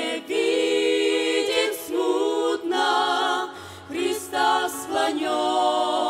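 Women's vocal group singing a hymn in Russian in close harmony, several voices together on long held notes with short breaks between them.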